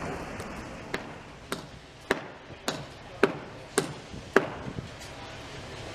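Hammering: seven sharp, evenly spaced strikes, a little under two a second, beginning about a second in.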